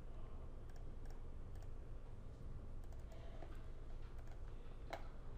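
Faint clicks of a computer mouse and keyboard as points of a curve are placed and the command is finished: a few scattered clicks, a sharper one near the end, over a steady low hum.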